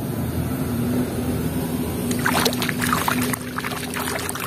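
A toy being swished and splashed by hand in shallow water to wash it, a rapid run of splashes starting about two seconds in. A steady low hum runs underneath.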